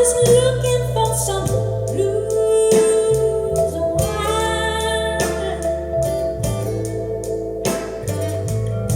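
Recorded music: a singing voice over guitar and a bass line that moves note by note, with regular percussive hits.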